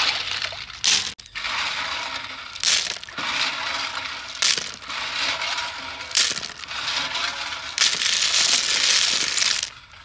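Live snails being washed by hand in a basin of water: shells clattering and grinding together with splashing, in surges about every two seconds, the last one longer and cutting off sharply near the end.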